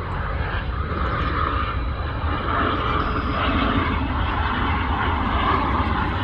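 Jet airliner engines rumbling steadily, growing slightly louder toward the end.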